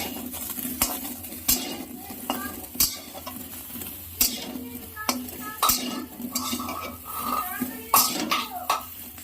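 Spatula scraping and knocking against a dry kadai as potatoes are tossed without oil, a sharp knock or scrape about once a second.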